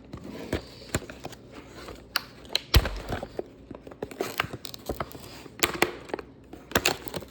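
Scissors cutting into a plastic blister pack: irregular sharp snips and cracks of the stiff plastic, the loudest about three seconds in, with crinkling handling noise between them.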